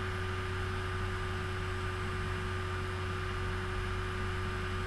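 Steady electrical hum with a constant hiss, the background noise of an open computer microphone line; no speech.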